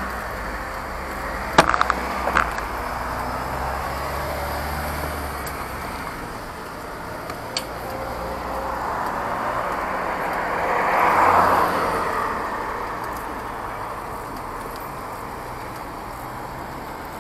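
Street traffic: a vehicle drives past, swelling to its loudest a little past the middle and fading away, over a steady low engine hum. There are a few sharp knocks about two seconds in.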